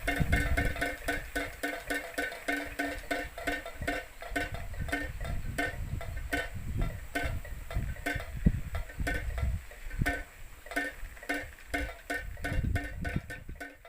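Wind-driven PVC-pipe bird-scaring windmill (klencer) spinning, its strikers knocking on the pipe in a fast, uneven clatter of hollow, ringing knocks, several a second. Wind buffets the microphone underneath.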